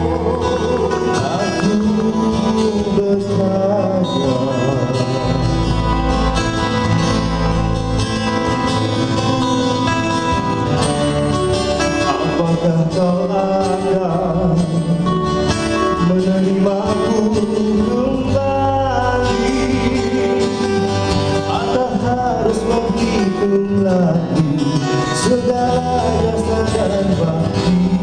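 Male voices singing a slow Malay song live into microphones, backed by strummed acoustic guitars and bass guitar.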